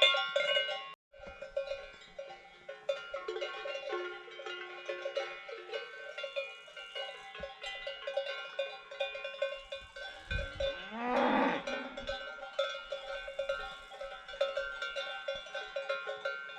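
Cowbells hanging from grazing cattle clanking and ringing continuously as the cows move, with one cow mooing loudly about two-thirds of the way through.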